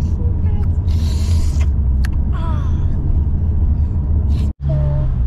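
Low, steady rumble of road and engine noise inside a moving car's cabin. A brief hiss comes about a second in, and the sound cuts out for an instant near the end.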